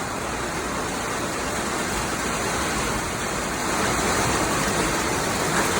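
Steady rain falling, an even hiss that grows a little louder a little under four seconds in.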